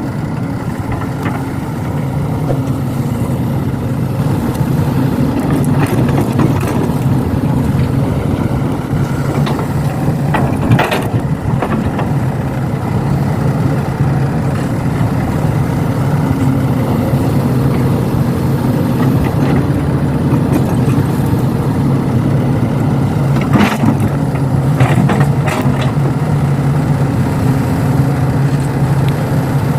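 Kobelco SK200 excavator's engine running steadily while it works, with a few short knocks about a third of the way in and again after two-thirds.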